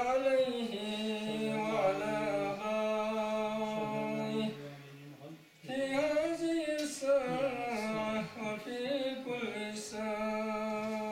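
A man's solo voice chanting a religious recitation unaccompanied into a microphone, in long, drawn-out melodic phrases. One phrase fades out about four and a half seconds in, and after a short pause a second phrase begins.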